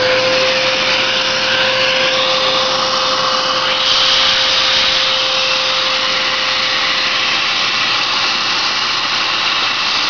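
A high-power vacuum running at a steady whine over a rush of air, its hose held at a blower engine's exhaust port to draw out loosened carbon. The rush grows brighter about four seconds in.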